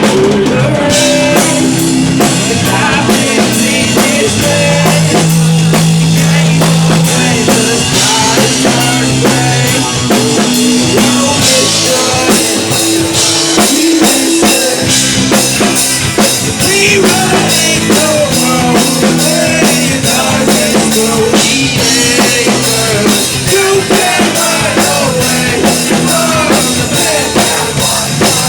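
Live band playing loud rock music, with a drum kit keeping a steady beat under sustained pitched instrument lines.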